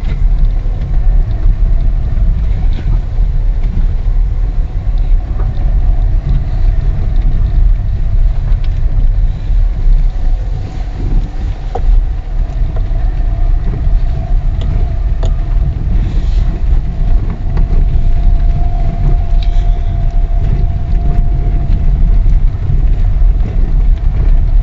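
Lada Vesta driving over a rough, bumpy road: a loud low rumble from the suspension and tyres, with a few faint knocks here and there. The driver puts the remaining rattle down to the electric power steering unit.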